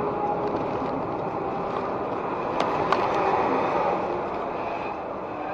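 Steady road and engine noise of a vehicle driving along a highway, as picked up by a dashcam, with two short clicks close together about halfway through.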